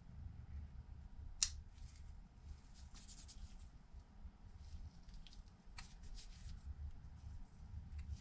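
Quiet handling of small repair tools and phone parts on a workbench: faint rustles and a few small sharp clicks, the clearest about a second and a half in and another near six seconds.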